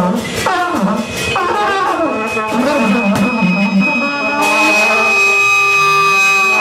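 Live noise-music performance: loud pitched tones bending and sliding up and down, then about four seconds in a steady high whine and held tones take over.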